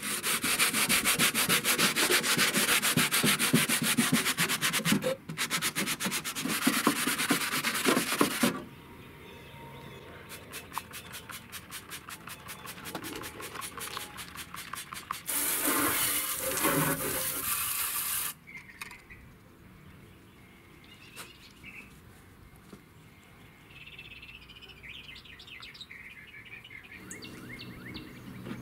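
Loud, continuous abrasive sanding of the flaking paint on an old metal mailbox bird house for about eight seconds. After that come quick repeated squirts from a trigger spray bottle and a few seconds of loud hissing.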